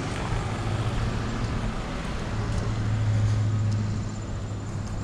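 Low steady motor hum over outdoor background noise, growing louder about two seconds in and easing off near the end.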